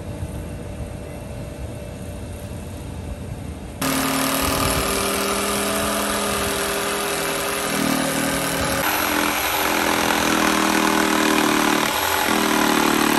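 Cordless jigsaw cutting through a pressure-treated pine board. It starts suddenly about four seconds in, and its motor pitch shifts up and down several times as the blade works through the cut.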